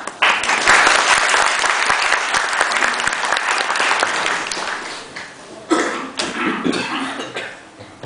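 Audience applauding as the oath of office is completed, loud for the first few seconds and then fading; a knock and some talking near the end.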